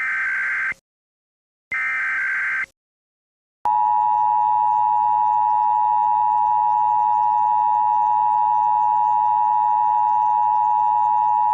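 Emergency Alert System tones. First come the last two SAME digital header bursts, each a harsh warbling data screech of about a second, a second apart. About four seconds in, the two-tone EAS attention signal starts: a loud, steady dual tone held for about eight seconds that cuts off abruptly, announcing the voice alert to follow.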